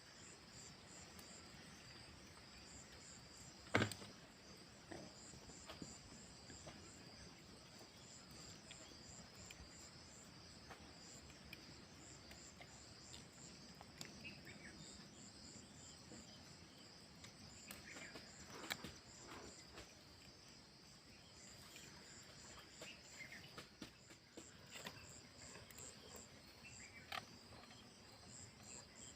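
Insects chirping steadily in a high, evenly pulsing trill, with a sharp knock about four seconds in and a few fainter knocks later.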